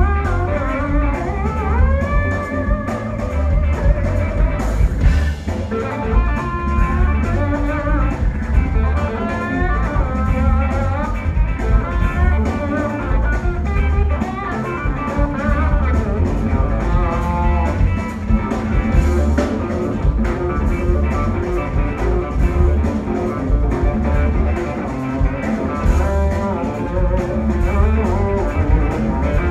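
Live funk-soul band playing an instrumental passage, with electric guitar and drum kit over a heavy bass line and a moving lead melody, heard as a soundboard line feed.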